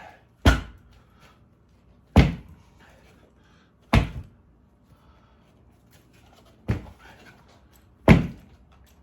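A motorcycle tire being struck to seat its bead on the rim: five heavy thuds, spaced about every one and a half to two seconds.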